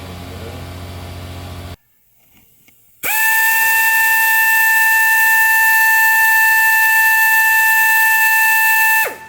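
A high-speed cutting tool with a cut-off wheel starts about three seconds in and runs at a loud, steady, high-pitched whine with a hiss. Near the end its pitch falls as it spins down. It is being used to cut a screwdriver slot into a sheared, seized bolt. A steady hum is heard before it, then a brief near-silence.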